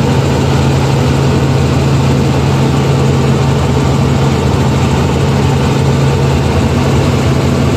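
Steady in-cabin noise of a Robinson R44 helicopter in cruise flight: a constant low drone from the engine and rotor under a wide rushing noise, unchanging throughout.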